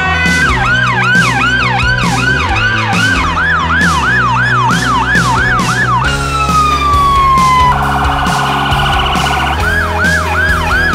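Emergency vehicle sirens in quick succession: fast rising-and-falling siren sweeps, about two a second, then a long falling tone about six seconds in, a rapid warbling siren, and the fast sweeps again near the end.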